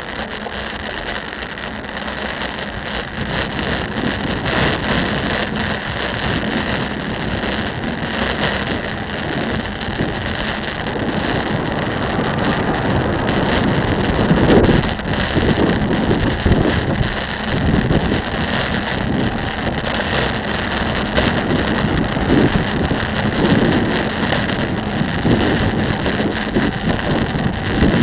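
Wind buffeting the microphone of a bicycle-mounted camera, mixed with road and traffic noise from riding in city traffic. About halfway through it gets louder as a skip-loader lorry runs close alongside, its diesel engine rising and falling in uneven swells.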